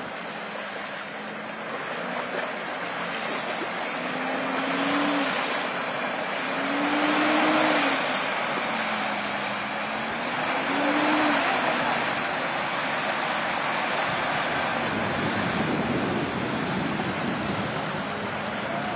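SUV engine revving up and down in three surges as the vehicle churns through deep mud and water, over a steady wash of tyre and slurry noise.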